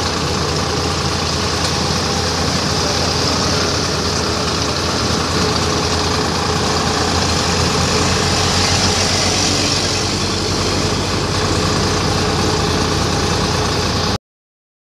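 Sonalika DI 740 tractor's diesel engine running steadily on the road, heard from the driver's seat, with a steady hiss over the engine's low hum. The sound cuts off suddenly near the end.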